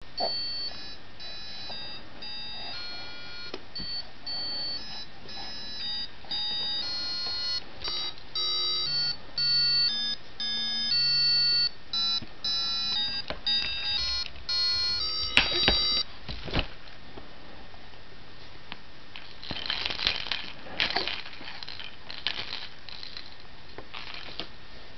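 An electronic device plays a melody of short beeping notes for about fifteen seconds, like an alarm or ringtone. Then come a few sharp clicks and knocks, and later some brief noisy scuffling sounds.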